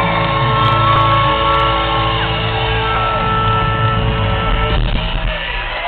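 Live band music in a concert hall: sustained chords over a steady bass, with a held vocal line on top.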